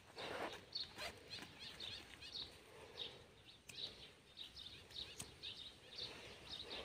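Faint, repeated high bird chirps, with a few soft clicks and rustles of twigs and leaves being handled.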